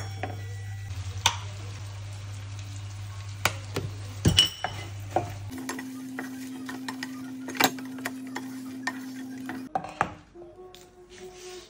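Wooden spatula stirring in a frying pan: a honey-and-butter sauce sizzles while the spatula scrapes and knocks against the pan now and then. Later, fried chicken pieces are stirred through the sauce. A steady low hum sits underneath and jumps higher in pitch about halfway through.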